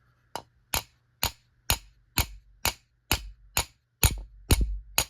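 Wooden hammer handle rapping on a Smith & Wesson K-frame revolver in a steady series of sharp knocks, about two a second, jarring the side plate up out of the frame.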